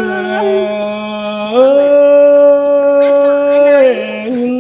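Unaccompanied Tai (Thái) folk singing: one voice holds a long note, then slides up about a second and a half in to a higher, louder note held for about two seconds before falling back.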